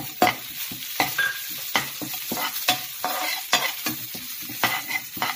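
Curry leaves, onion and whole spices sizzling as they fry in coconut oil in a steel pan, while a slotted steel spoon stirs and scrapes against the pan with sharp clicks about twice a second.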